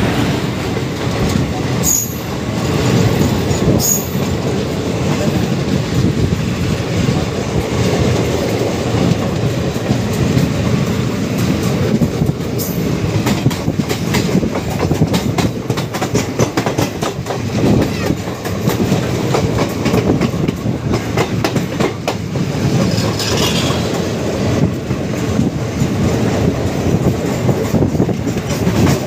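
Yelagiri Express passenger train passing at speed close by, locomotive first and then a long string of coaches. A steady heavy rumble of wheels on rail runs throughout, studded with rapid clicks as the wheels cross the rail joints.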